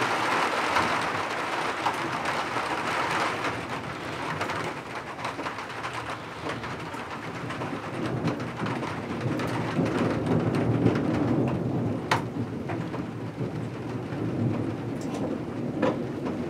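Heavy rain pouring down, densest in the first few seconds and then easing a little. A low rumble of thunder rolls through the middle. Scattered sharp drops tap nearby in the second half.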